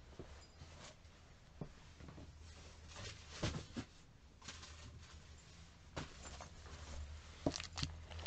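Faint, scattered handling noises: soft clicks and short rustles of paper and plastic, over a low steady hum.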